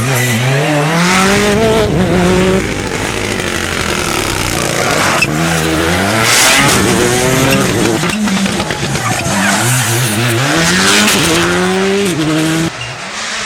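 Rally cars accelerating hard, engines climbing in pitch and dropping again at each gear change, several shifts in a row. The sound changes abruptly twice, between passes.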